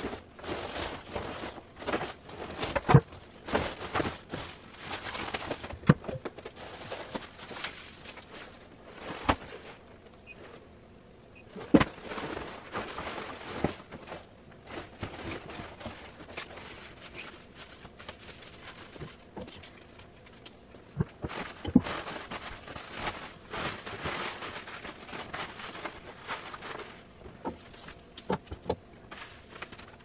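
Foil-faced bubble insulation blanket crinkling and rustling in irregular bursts as it is wrapped and pressed around a hot water heater tank, with a few sharp knocks.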